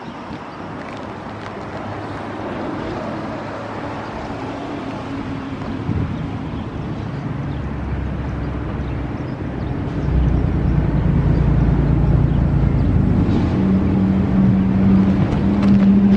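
Low rumbling engine noise, as of a nearby motor vehicle, growing louder and stepping up about ten seconds in, with a steady low hum on top near the end.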